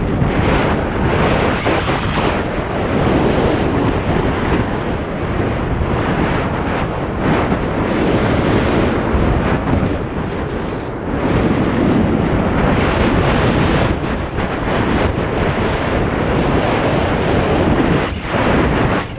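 Wind rushing over a GoPro's microphone and skis sliding and scraping on packed snow during a downhill run, a loud steady rush that dips briefly twice.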